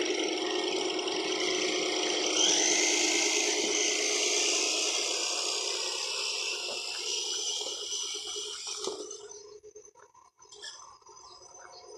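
Traxxas TRX-4 Sport RC crawler's electric motor and geared drivetrain whining steadily while it drives, with a hiss over it; the sound fades away about nine seconds in as the truck pulls off.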